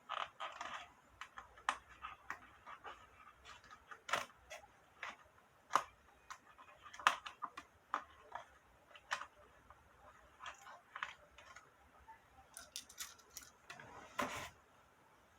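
Light, irregular clicks and taps of insect pins being handled and pushed in while pinning out a cicada's legs and hind wing for a specimen, with a short rustle near the end.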